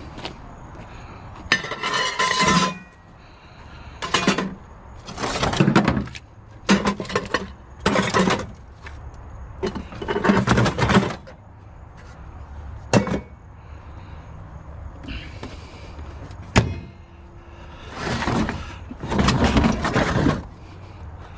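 Scrap items being handled and loaded: a run of irregular clattering and scraping noises, each lasting about a second, with a few sharp clinks between them.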